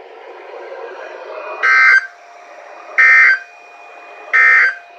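NOAA Weather Radio SAME end-of-message data bursts: three short, harsh digital bursts about a second and a third apart, which signal the close of the weekly test alert. They come over a radio receiver with a faint steady hiss and hum between them.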